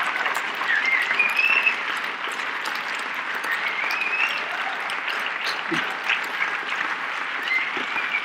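An audience applauding steadily, with a few rising whistles from the crowd.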